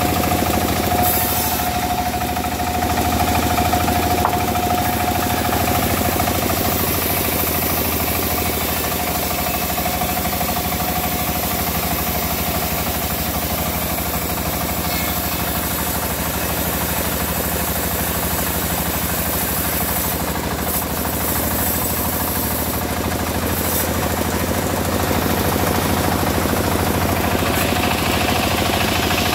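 Engine-driven wood-sawing machine running steadily, its engine giving a rough, knocking beat with a steady whine over it.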